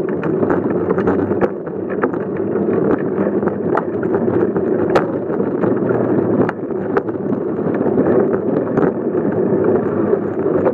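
Bicycle rolling over a brick sidewalk, picked up through a phone mounted on its front: a steady rumble and rattle with irregular sharp knocks as the wheels hit bumps and joints in the paving.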